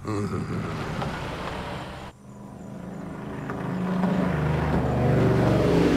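Car engine revving and pulling away on dirt. After a sudden break about two seconds in, an engine climbs in pitch and grows steadily louder as a car accelerates.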